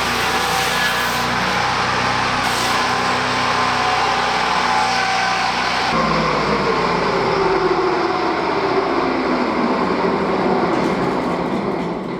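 Swing-blade mobile sawmill running, its engine and saw blade loud and steady. About six seconds in the sound changes, and toward the end the pitch falls gradually as the mill winds down.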